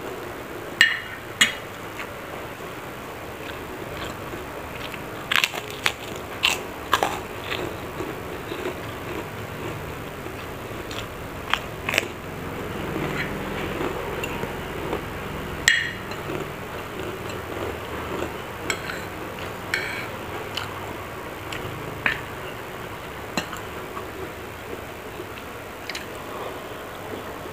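Close-up eating sounds: a metal spoon and fork clinking and scraping against a plate in sharp, irregular clicks, between bouts of chewing fried rice.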